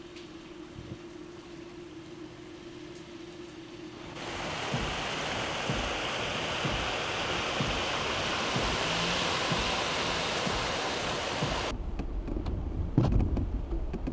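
Steady rain hissing over flooded streets, faint at first, then loud and even from about four seconds in. Near the end it gives way to a low rumble with wind on the microphone and a thump.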